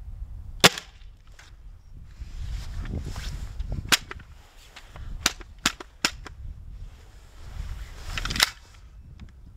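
Umarex HDX.68 CO2 pump-action launcher firing metal balls: several sharp pops and cracks, the loudest about half a second in, near four seconds and a little past eight seconds, with three quicker cracks around five to six seconds, over a low rumble. The shots are coming in very underpowered, which the shooter puts down to the bitter cold weakening the CO2.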